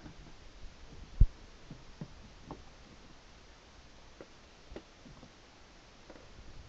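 A few soft, low thumps and light knocks over quiet room tone, the loudest a single thump about a second in.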